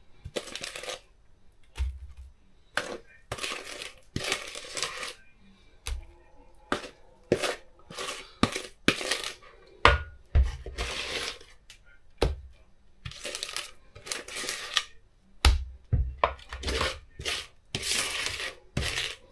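Spatula scraping thick cake batter out of a plastic mixing bowl in repeated, irregular scraping strokes, with a few dull knocks in between.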